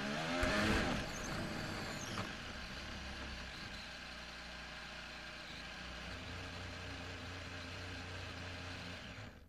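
A Red Bull-Honda Formula 1 car's V6 turbo engine note drops as the car hits the wall, with a loud crash about half a second in. After it comes a steady low rumble and hiss, which cuts off abruptly near the end.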